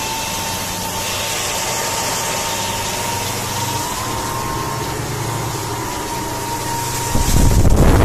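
Twin Honda BF200 V6 four-stroke outboards running steadily under way on a sea trial after servicing: a steady engine drone with a high whine over it that rises slightly about halfway. Near the end, wind buffets the microphone.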